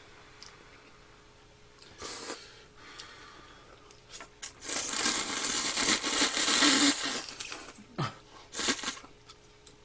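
Instant curry ramen noodles being slurped from chopsticks, in several short slurps and one long slurp of about three seconds starting a little before halfway through.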